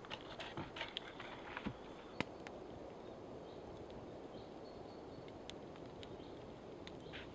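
Wooden logs knocking and clattering as they are set into a log reflector wall, with a sharp click about two seconds in. After that only a faint steady hiss with a few small ticks.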